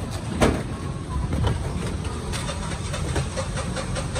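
Steady low engine rumble of street traffic, with a sharp knock about half a second in and a few lighter clicks and clatters from work at the stall.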